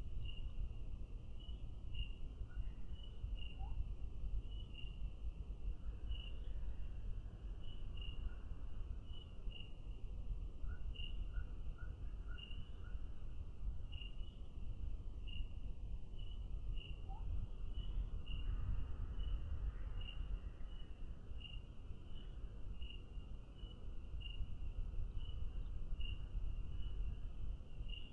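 Crickets chirping in a steady run of short, repeated chirps, over a low rumbling background noise.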